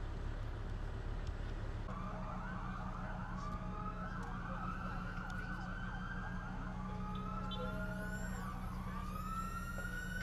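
An emergency vehicle siren wailing, starting about two seconds in and rising slowly in pitch in repeated long sweeps, over a steady low hum.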